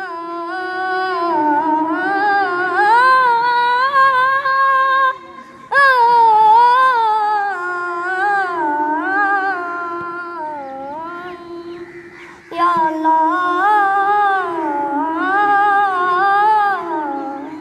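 A boy's high solo voice singing a qawwali through a microphone, in long, winding held notes with no drum, in three drawn-out phrases broken by short pauses about five and twelve seconds in.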